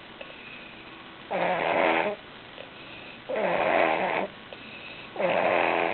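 Heavy snoring from a sleeper who is sick, like a chainsaw cutting wood: three loud snores about two seconds apart, each lasting about a second, with quieter breathing between.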